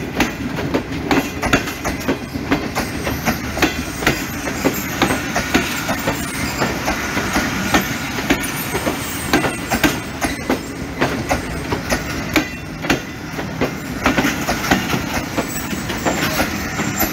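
Pakistan Railways passenger coaches rolling past, their wheels clattering over the rail joints in a continuous run of sharp clicks over a steady low rumble.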